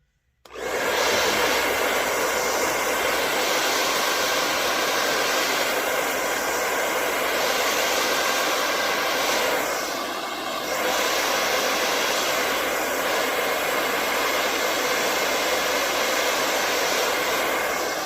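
Handheld hair dryer on its warm setting blowing steadily, switched on about half a second in, with a brief dip in level about ten seconds in.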